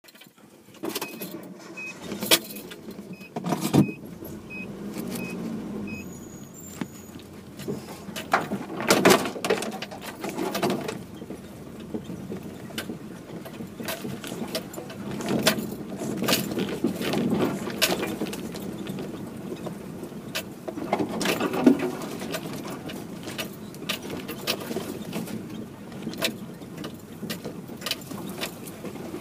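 Vehicle crawling along an overgrown trail, heard from inside the cab: branches and brush scraping along the body, with many sharp knocks over a low engine hum. A faint repeated beeping in the first few seconds.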